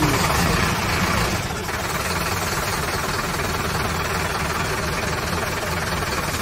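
Truck engine idling steadily, a low rough rumble.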